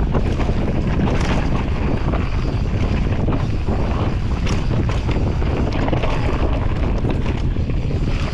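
Wind rushing over the microphone of a camera on a mountain bike descending fast, mixed with tyre noise on a dirt trail. A couple of brief clatters come from the bike over bumps, about a second in and again near the middle.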